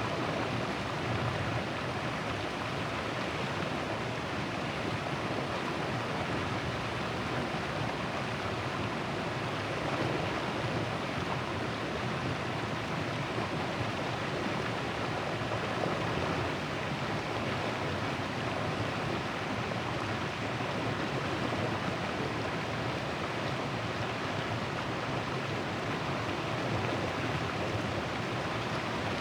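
River water flowing steadily, an even rush with no breaks.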